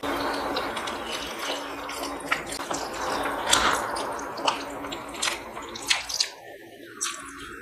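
Wet mukbang eating sounds: fingers mashing rice and chicken curry on a steel plate, with sticky squelches and many short clicks, and mouth sounds as handfuls are eaten. The sounds thin out near the end.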